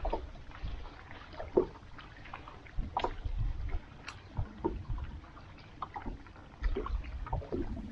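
Lake water lapping and slapping against the hull of a fishing boat in short, irregular splashes, with occasional small knocks and a low, uneven rumble.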